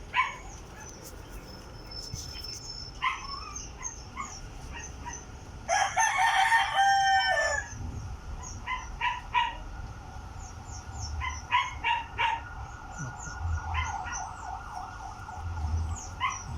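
A rooster crows once, about six seconds in, a call lasting about two seconds. Short high chirps come and go around it.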